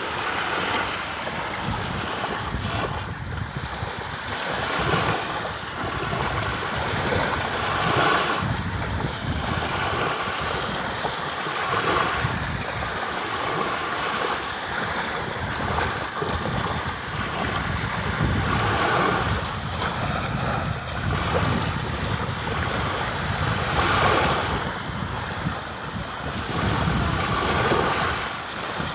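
Sea waves surging and washing in, swelling about every three to four seconds over a steady wash of water, with wind buffeting the microphone.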